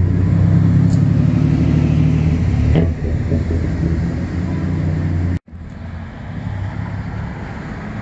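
Steady low hum of a vehicle engine idling close by, with even low pitched lines. About five seconds in it cuts off abruptly and a quieter steady hum follows.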